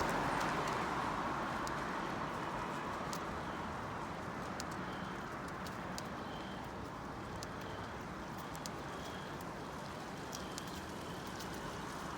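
Wind rushing over the microphone during a bicycle ride, a little stronger at the start, with scattered light clicks and faint short high chirps.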